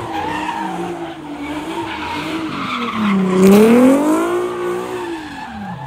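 Car engine revving hard, its pitch swinging up and down, dipping about three seconds in and climbing again, with tyres squealing as the car slides.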